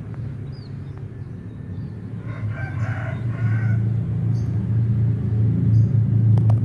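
A rooster crowing once, a call of about a second and a half in the middle, over a low rumble that grows louder toward the end.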